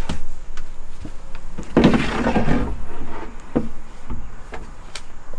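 A camper dinette tabletop being handled and set into place: several light knocks and clunks, with a louder scraping slide about two seconds in.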